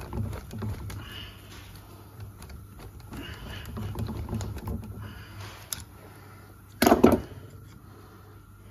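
Metal clicking and rattling of an injector-sleeve rolling tool being worked by hand in the injector bore of a Leyland 4/98 or 6/98 cast-iron cylinder head, in bursts over the first five seconds, while the sleeve is not gripping. About seven seconds in there is a loud, sharp double knock of metal on metal.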